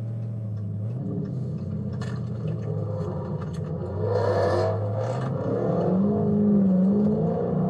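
Dodge Scat Pack's 392 Hemi V8 running steadily, then revving up with its pitch climbing over the last couple of seconds; a short rush of noise comes about four seconds in.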